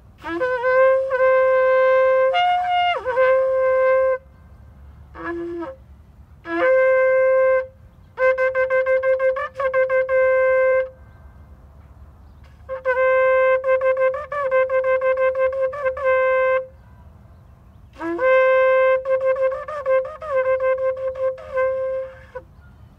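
A ram's horn shofar blown in a series of about six blasts on one steady note, each opening with a brief lower note that slides up into it. Some blasts are held long, others are broken into quick wavering pulses, with short pauses between them.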